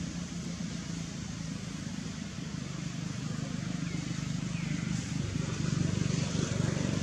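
An engine running steadily with a low hum, a little louder from about five seconds in.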